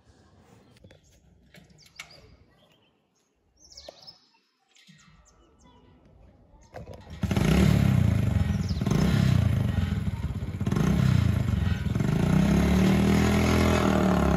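A motorcycle engine starts abruptly about seven seconds in and runs loudly, its pitch rising and falling with the throttle. Before that there are only faint clicks and rustles.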